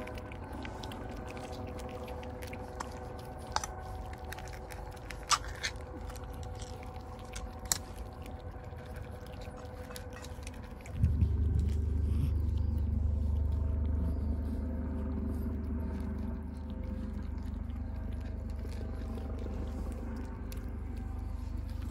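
Cats eating, with small sharp clicks of dry kibble being crunched. About halfway through, a steady low rumble starts and stays, louder than the chewing.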